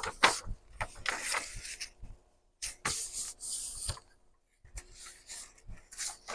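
Sheets of paper rustling and sliding in short bursts as pages are handled and sorted, with a few light taps.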